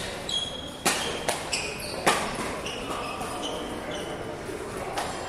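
Badminton rally: sharp racket-on-shuttlecock hits, about a second in, again just after two seconds (the loudest), and once more near the end, with short high squeaks of court shoes on the floor between them.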